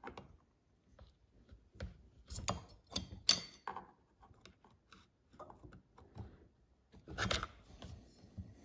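Screwdriver tightening the intake-boot clamp screw on a Stihl 026 chainsaw: scattered small clicks and scrapes of the tool against the screw and clamp, busiest a couple of seconds in and again near the end.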